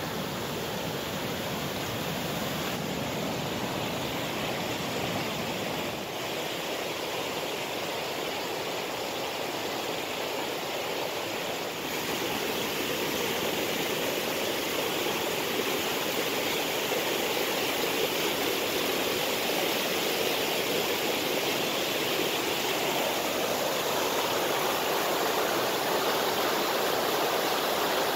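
Fast mountain river rushing over rocks in whitewater rapids, a steady rush that grows louder about twelve seconds in.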